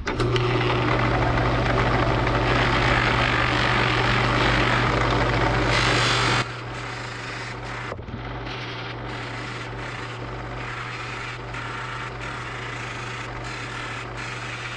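Drill press running with a buffing wheel in its chuck, with a steady motor hum, as a wooden knife handle and blade are held against the spinning wheel to polish them. Loud for the first six seconds or so, then it drops suddenly to a lower, steady level.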